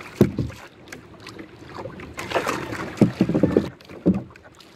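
A wooden paddle stroking water beside a small outrigger boat: splashing and sloshing, with a few sharp knocks against the boat, one just after the start and a couple more near the end.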